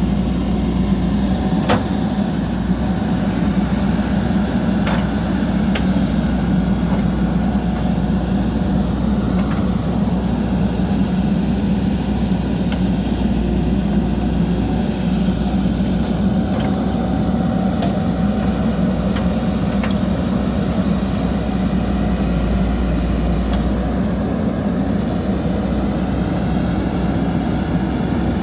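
JCB backhoe loader's diesel engine running steadily under load, with a few faint sharp clicks or knocks.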